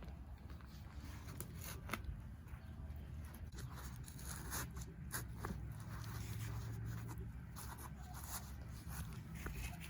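Digging in loose garden soil to uncover potatoes: scattered scratching and crackling as the earth is scraped and moved.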